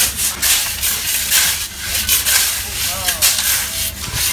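Shovels scooping loose dark sand and throwing it over a person, heard as a run of short hissing scrapes, one after another.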